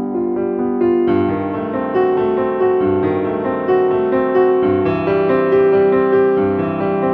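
Background piano music: a steady flow of sustained notes.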